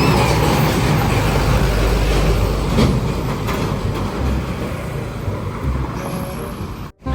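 Heavy road vehicle driving past close by: a loud low rumble of engine and tyre noise that slowly fades as it moves away, then cuts off abruptly near the end.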